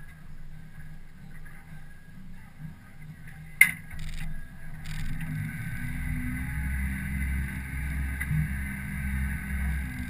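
Boat's outboard motor running, a low steady rumble that grows louder from about halfway through. A single sharp knock about a third of the way in.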